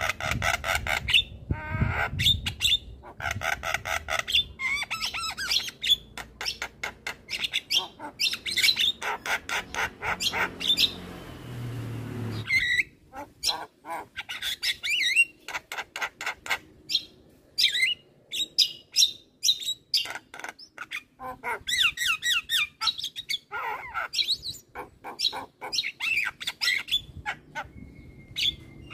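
Javan myna chattering in runs of quick, harsh, repeated notes with short pauses between them. Around the middle there are a couple of seconds of steady rushing noise.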